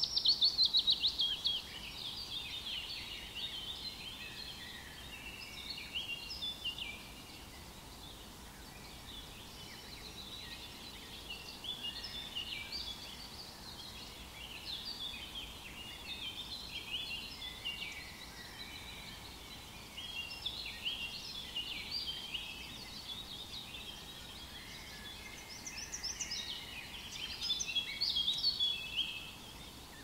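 Birdsong: many small birds chirping, with short high calls overlapping throughout, louder at the start and again near the end.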